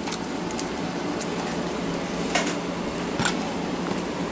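A hand working in a mixing bowl of flour and egg batter, giving two sharp clicks against the bowl, about halfway through and again a second later, over a steady hiss and low hum.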